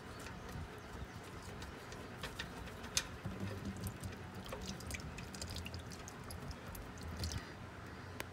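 Engine oil draining from a Kawasaki Mule Pro FXT's drain plug hole into a drain pan, a faint dripping, running liquid. Scattered light clicks run through it, with a sharper tick about three seconds in.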